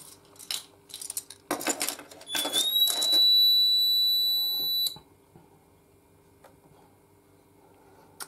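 A few handling knocks and rustles, then the MAG 2 fire alarm control panel's internal buzzer gives one loud, high, steady beep of about two and a half seconds as the panel resets, cutting off suddenly.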